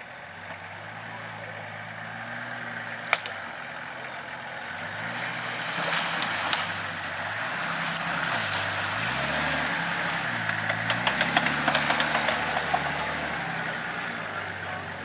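Off-road 4x4's engine working through mud and water, its revs dropping and rising several times. A single sharp crack about three seconds in, and a quick run of ticks and knocks near the end.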